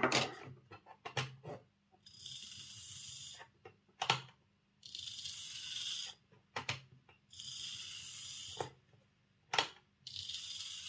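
Hornby Class 3F Jinty OO-gauge locomotive chassis running on a test track in four short runs of about a second and a half each, a high-pitched whirring buzz from its small DC motor and gears. Sharp clicks come between the runs. The motor is running again now that a copper strip links its contact to the wheel pickup.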